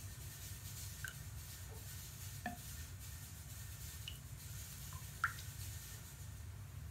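Bath bomb fizzing quietly in bathwater under a layer of foam, with a handful of small drip-like plinks from bursting bubbles, the sharpest about five seconds in, over a steady low hum.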